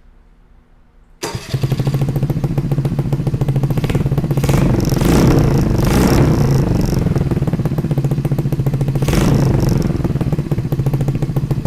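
2022 Honda Navi's single-cylinder engine starting suddenly about a second in through a Hotlap Mamushi exhaust with its baffle removed, then running loud and steady, revved up a few seconds in and briefly again later.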